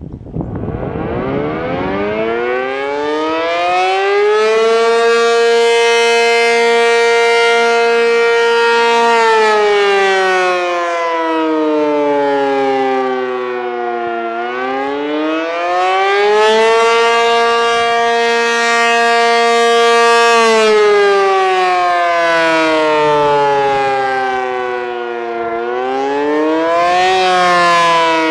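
American Signal T-135 AC outdoor warning siren winding up from a standstill and sounding the Attack signal. Its tone climbs over the first few seconds, holds high for about five seconds, sinks low, climbs back and holds, then sinks and rises again near the end, in slow up-and-down cycles.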